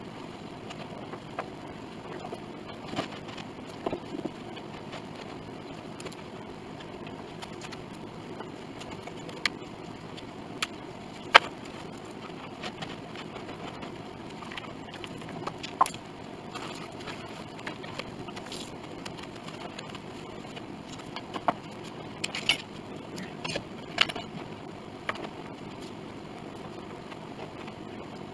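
Scattered clicks and knocks of metal bar clamps and hand tools being handled while the inner rim of a grand piano is glued and clamped, over steady background noise. The sharpest knock comes about eleven seconds in, with a cluster of them near the end.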